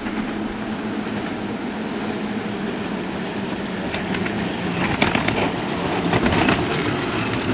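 7.25-inch gauge Co-Co battery electric locomotive running light along the track: a steady rumble of steel wheels on rail, with a run of clicks and knocks in the second half.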